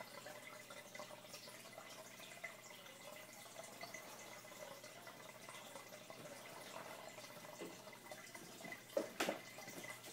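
Aquarium air bubbles streaming and trickling, heard faintly underwater, over a steady wavering hum. Two quick knocks near the end.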